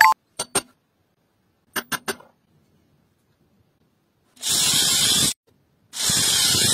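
A power drill boring into a pine block in two separate bursts of just under a second each, a steady hissing whir. Before that, a few light clicks and knocks.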